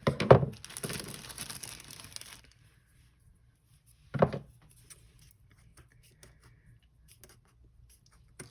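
Hands working with craft materials on a table: about two seconds of crinkling, rustling handling noise with a few knocks in it, then a single short knock about four seconds in.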